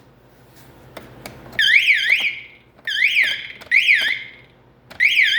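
Fire alarm sounder going off with a fast up-and-down warbling tone: three short bursts about a second apart, then sounding continuously about five seconds in.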